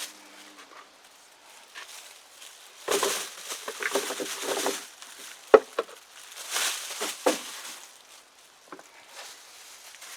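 Dry, papery rustling and crackling in a few short bursts as cured garlic bulbs are handled, with one sharp knock about halfway through.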